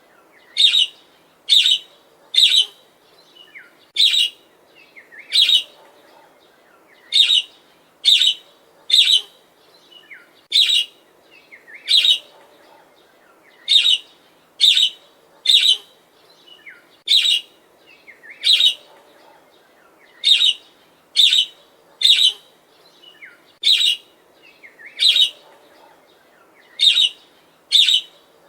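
Budgerigar (budgie parakeet) chirping: short, loud, high chirps repeated steadily about once a second, often in quick pairs.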